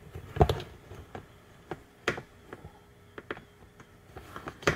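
Scattered sharp clicks and small scrapes of a slim pry tool working a plastic push-type fastener out of a car's plastic under-cover, with the loudest snaps about half a second in, about two seconds in and just before the end.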